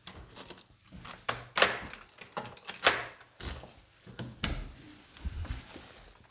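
Handling noise from a phone being carried, with a string of sharp knocks and clatters, the loudest about a second and a half and three seconds in, and a few dull thuds near the end.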